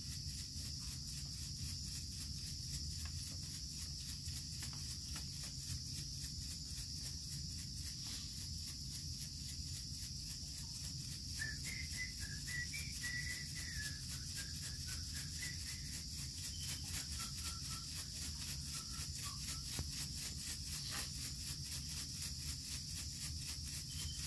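A chakapa leaf-bundle rattle shaken steadily with a dry, rapid, even rustle, over a steady high insect chorus. A few short high chirps come in around the middle.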